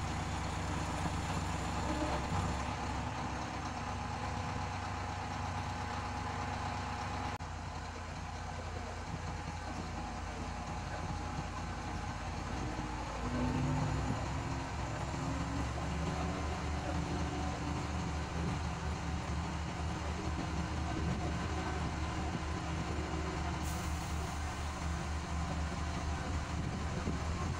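Diesel engine of a 90-ton mobile crane running steadily while the hydraulics are worked to raise the boom. It gets louder and pulses harder about halfway through, as the boom is lifted under load.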